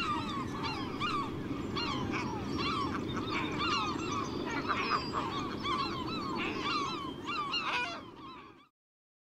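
Many gulls calling at once, a dense colony chorus of overlapping short rising-and-falling cries over steady low background noise. It fades out near the end.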